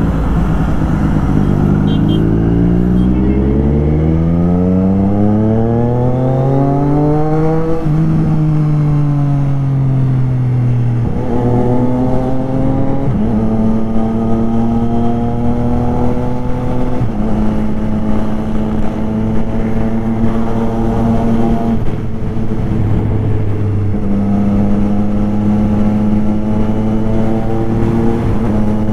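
Triumph Street Triple RS three-cylinder engine under way, revving up with a long rising note over the first several seconds, then easing and holding a fairly steady note while cruising, with a few sudden steps in pitch.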